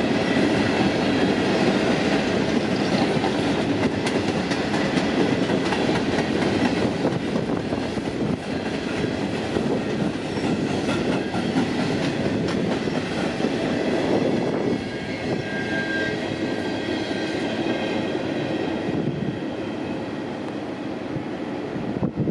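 Freight train cars rolling past, wheels clicking over the rail joints with a steady rumble, easing slightly near the end.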